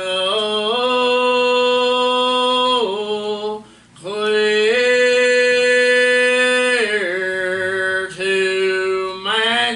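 Gospel singing, with voices drawing out long held notes. There are two long phrases with a short breath between them about three and a half seconds in, then shorter stepping notes near the end.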